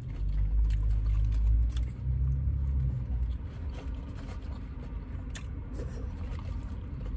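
Low rumble of a motor vehicle, heavy for about the first three seconds and then fading back to a steady low background, with faint scattered clicks.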